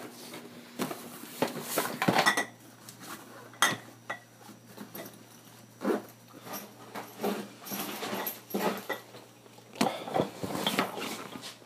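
Glass bottles clinking and knocking against each other as they are packed into a backpack, in a run of separate clinks and clatters, a few of them ringing briefly. A low steady hum sets in about two seconds in.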